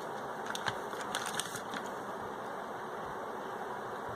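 Steady background hiss with a few faint, light clicks between about half a second and two seconds in.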